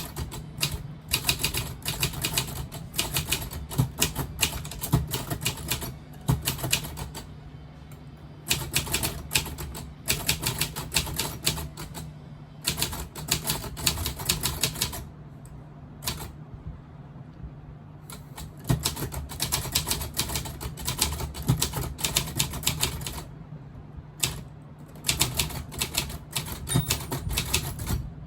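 Predom Łucznik manual typewriter being typed on, in runs of rapid key strikes a few seconds long with short pauses between them.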